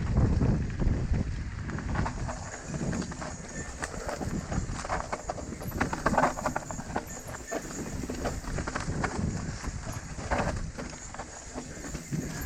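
Mountain bike rattling over rough trail: a dense run of irregular knocks and clatters from the tyres, chain and frame, with wind rumbling on the microphone in the first second or two.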